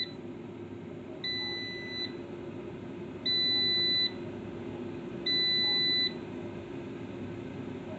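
Kmart Anko 1.5-litre digital air fryer beeping to signal that its cooking timer has run out. Three high electronic beeps, each just under a second long and about two seconds apart, sound over a steady hum.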